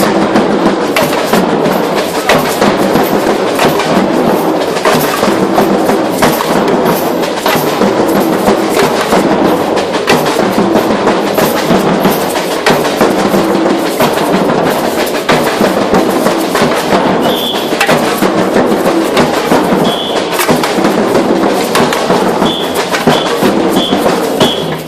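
Street percussion band playing a samba-style batucada rhythm on bass drums (surdos), snare drums and a frame shaker, a dense, steady drumming. A few short high tones sound near the end.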